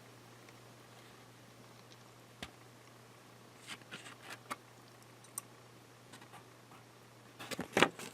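Faint handling of the lock's cardboard retail box: a few light clicks and taps, with a louder cluster of rustles near the end, over a steady low hum.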